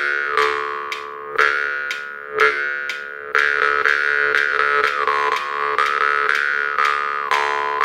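Metal jaw harp being played: a steady twanging drone struck again and again in a rhythm, with an overtone melody rising and falling above it.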